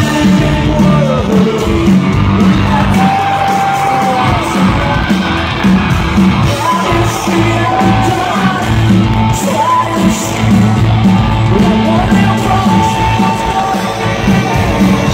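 Live rock band playing loudly in a large hall, with sung vocals over guitars, keyboard, bass and drums, and the crowd yelling along.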